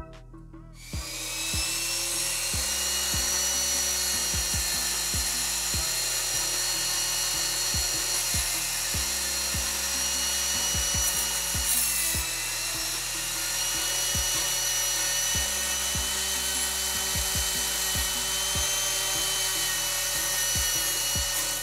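Small handheld rotary tool running steadily at high speed with a whining motor, its bit grinding against the die-cast metal body of a toy car. It starts about a second in.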